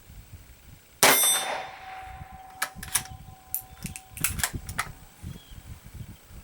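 A single shot from a Savage 93R bolt-action rifle in 17 HMR about a second in, followed by a clear ringing tone that fades over about three seconds, like a struck steel target. Several light metallic clicks follow, as the bolt is worked.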